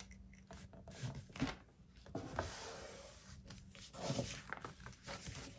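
Paper envelope rustling as a glued tab is folded over and pressed flat by hand, with soft rubbing of the palm and fingers across the paper and a few small taps.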